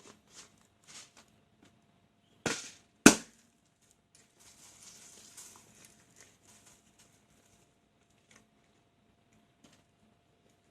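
A balloon bursting with a sharp bang about three seconds in, just after a shorter, rougher burst of noise; faint rustling and small clicks of handling come before and after.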